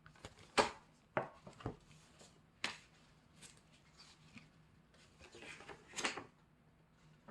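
Album packaging handled by hand: several sharp clicks and taps of card and plastic parts in the first three seconds, then a stretch of paper rustling about five to six seconds in.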